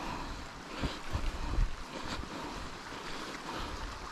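Wind buffeting the microphone in uneven low rumbling gusts, over a steady rushing hiss of running water from a stream near the top of a waterfall.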